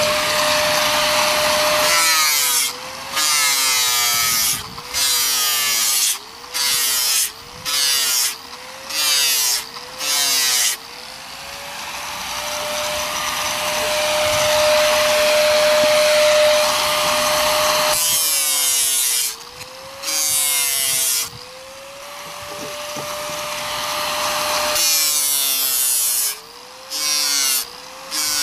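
Corded angle grinder with an abrasive disc grinding fiberglass on a wood panel: a steady high motor whine that sags in pitch each time the disc is pressed on, joined by harsh grinding noise. It goes in many short passes of about a second each, with a longer steady stretch in the middle.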